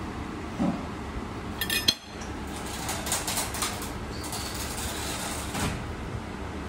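Knife and fork clinking and scraping against a plate as a waffle is cut and picked up, with a burst of sharp clinks just before two seconds in and scraping strokes running until near the end, over a steady low background hum.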